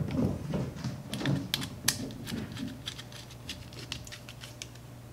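Small hand screwdriver driving screws into the plastic feeder housing of an Ultimaker 2+ 3D printer, with scattered sharp clicks and light knocks of plastic parts being handled, densest in the first three seconds. A steady low hum runs underneath.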